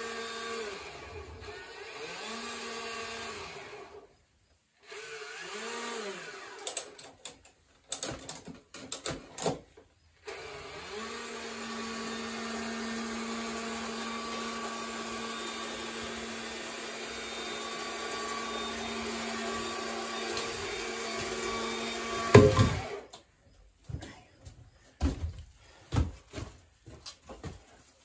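Small electric hoist motor whining as it lifts a bundle of sawmill slabs, first in short starts and stops, then running steadily for about ten seconds. It ends in a loud clunk about 22 seconds in, followed by scattered wooden knocks.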